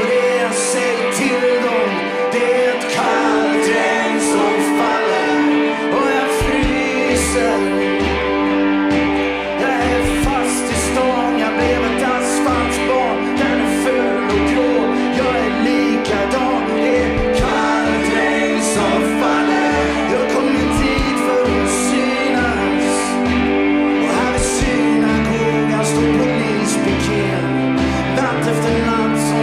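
Live band music: a man singing over acoustic and electric guitars and drums, with backing voices. A low bass line and beat come in about six seconds in.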